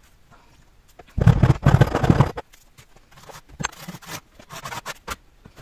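Wide steel putty knife scraping excess molding sand off the top of a filled sand-casting flask: a loud stretch of rasping about a second in, then lighter, intermittent scrapes of the blade over the sand and the flask's rim.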